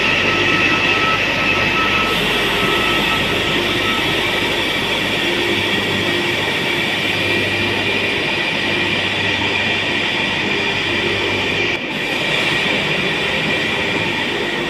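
Loud, steady drone of industrial machinery, electric motors and fans running, with a steady high whine over a low hum. It dips briefly about twelve seconds in, then carries on.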